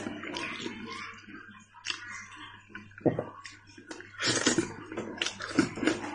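A man biting into and chewing a fried piece of sheep tail, close up: wet, open-mouthed smacking in irregular bursts, a few of them louder past the middle.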